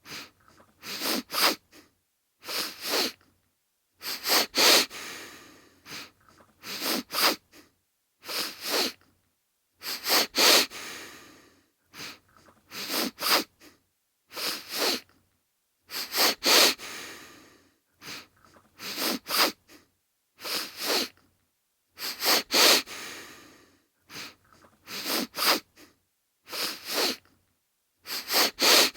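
A man sniffling through a stuffy nose, as with a head cold: quick sharp sniffs in clusters of two or three, repeating about every two seconds, some followed by a fading breath out.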